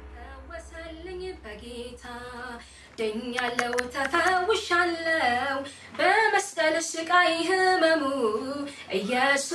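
A woman singing a worship song in Amharic without accompaniment, softly at first and louder from about three seconds in, while a low music drone fades out under the start.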